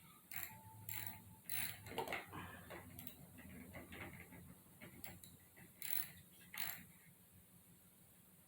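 Faint, irregular clicks and taps of tools and metal parts as a wheel and its 17 mm hex wheel nut are fitted to an Arrma Kraton 4S RC truck. The clicks come a second or so apart, with a louder pair near the end.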